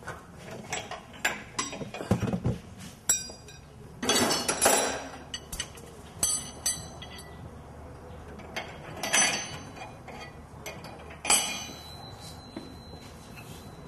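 Scattered metallic clinks and clanks, several of them ringing briefly, from the steel rear axle, leaf spring and tools being knocked together as the axle is lowered onto the new leaf spring and guided into place.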